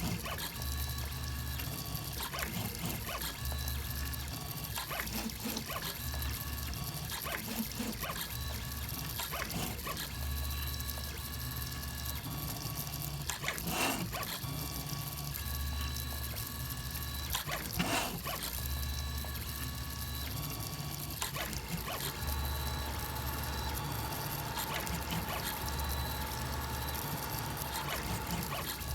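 A K2800 3D printer's stepper motors whining as the print head and bed move, the low hum and the higher tones switching on and off every second or two as each move changes, with a couple of sharper clicks along the way.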